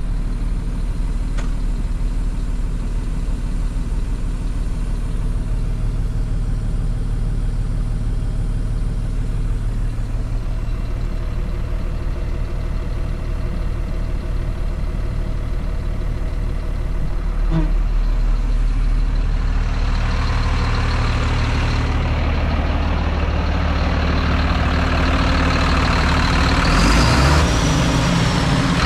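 The Mercedes-Benz diesel engine of a 2007 Sterling quad-axle dump truck idling steadily, heard first from inside the cab. In the last third it grows louder, with more rushing hiss, as the open engine bay comes close.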